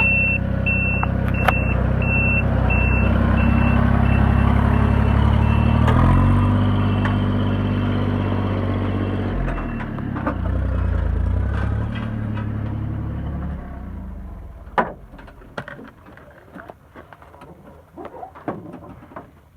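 A vehicle's engine running while reversing, its backup alarm beeping about twice a second over the first few seconds. The engine note shifts as it works, then fades out after about 14 seconds, leaving scattered knocks and clicks.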